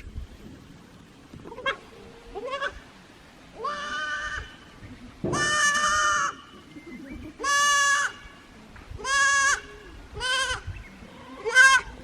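A young kid goat bleating over and over, about seven calls, the longest and loudest near the middle: a lost kid calling out.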